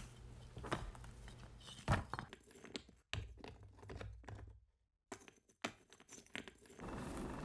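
A blade and fingers scraping and digging modelling clay out of a silicone mould: scattered soft scrapes, crumbles and clicks, with one sharper knock about two seconds in. A steady hiss takes over near the end.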